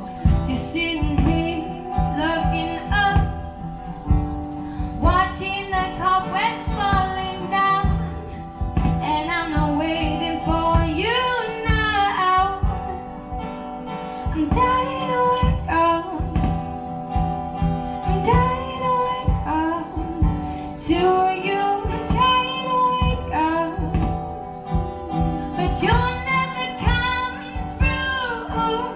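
A woman singing with a strummed acoustic guitar accompanying her.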